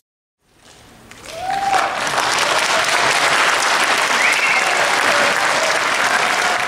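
Audience applauding: the clapping starts about half a second in, swells to full within about two seconds and holds, with a few voices shouting over it.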